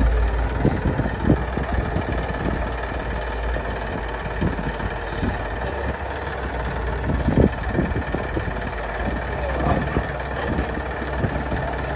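Heavy diesel engines running steadily with a deep low rumble, with scattered short knocks and clunks over it.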